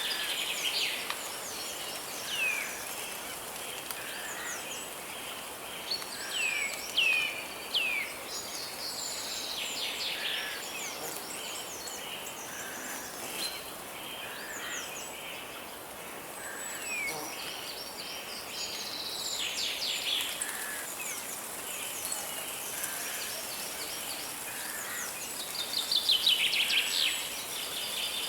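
Several songbirds singing and calling over a steady rushing hiss of a forest river: repeated short downward-sweeping whistles and quick trills, with a louder burst of rapid calls near the end.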